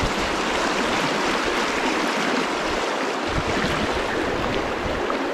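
Fast-flowing river water rushing steadily around a wading angler.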